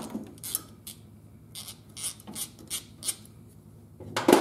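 Metal brake lines being bent and worked into place by hand around a master cylinder: a run of short scrapes and rubs, then a louder knock near the end.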